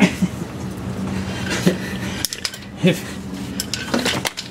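Hand tools clinking against metal, a few sharp clinks about a second apart, as sockets and a wrench are worked onto an alternator bolt.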